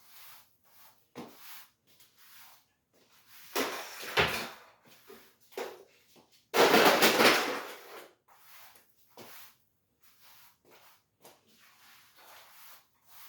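Broom sweeping a kitchen floor: irregular short swishing strokes, with two louder, longer scrapes about four and seven seconds in.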